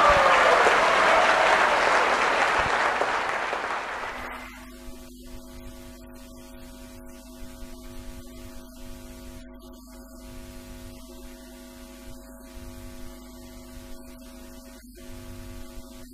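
An audience in a hall applauding, loud at first and dying away over about four seconds. Then soft background music of steady, held tones.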